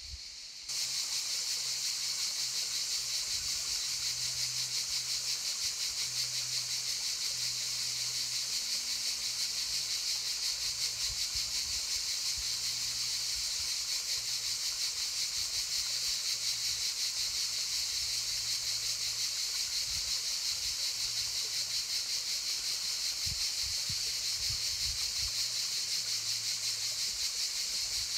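A dense, steady chorus of cicadas buzzing, a high hiss with a very fast pulse, cutting in abruptly about a second in.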